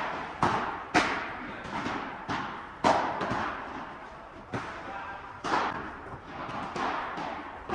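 Padel rally: the ball popping off solid padel rackets and bouncing on the court and walls, a run of sharp hits about one or two a second with a short lull near the middle, each with a brief echo.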